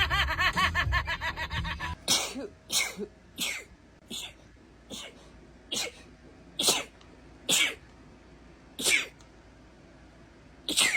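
A woman sneezing ten times in a rapid fit. The sneezes are short and sharp, coming less than a second apart at first, with the gaps widening toward the end.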